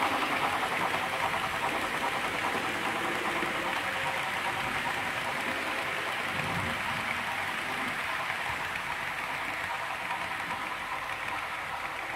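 Model train passenger coaches rolling along the track: a steady hiss of metal wheels on the rails that slowly fades as the train moves away.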